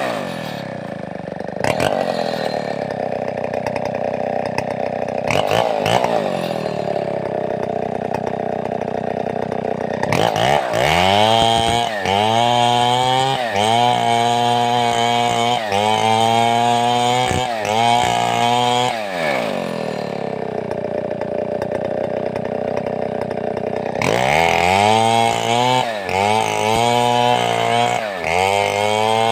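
Large two-stroke chainsaw settling to a steady idle. It is then revved in a series of quick rising-and-falling surges, drops back to idle, and is revved in surges again near the end.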